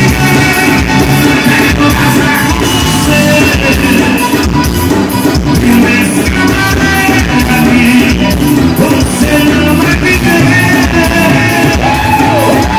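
Live forró band playing loudly, with accordion and electric bass under a male singer's voice.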